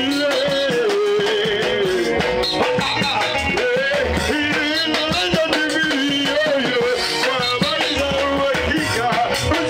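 Upbeat music with a steady drum beat, a low bass pulse and a wavering melody line.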